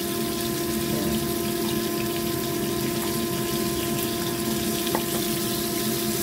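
Battered fish pieces sizzling steadily in hot oil in a frying pan, over a steady hum, with a light click about five seconds in.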